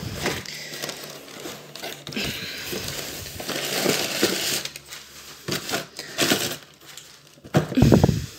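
Cardboard shipping box being handled and its flaps pulled open: irregular rustling, scraping and crinkling of cardboard, with the loudest burst of handling noise near the end.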